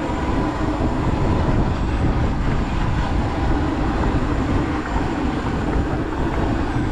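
Fishing boat's engine running, a steady loud low rumble.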